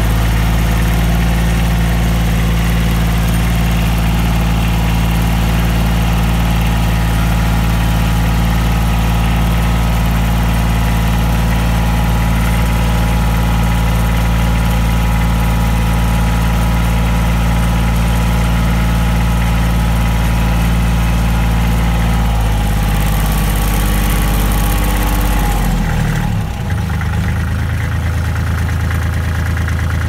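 Kubota L3400 compact tractor's three-cylinder diesel engine running steadily. About three-quarters of the way through, the engine note drops as the engine slows.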